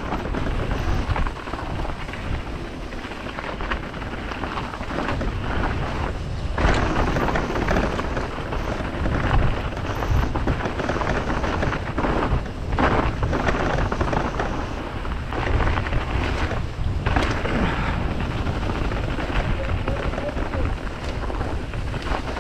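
Wind rumbling and buffeting over an action camera's microphone as a mountain bike is ridden down a trail, mixed with rolling tyre and bike noise; loud and unsteady, with a few brief lulls.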